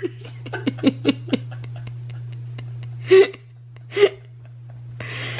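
A man laughing hard: a fast run of short laugh bursts for the first second and a half, then two loud gasping bursts about three and four seconds in, and a breathy gasp near the end.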